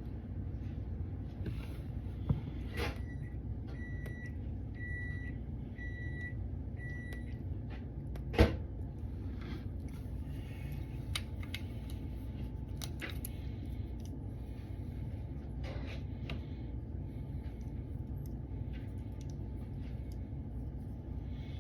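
Microwave oven beeping when its cycle finishes: six short, high beeps at one pitch, a little under a second apart. A single clunk follows soon after, the loudest sound here, with a low steady hum underneath throughout.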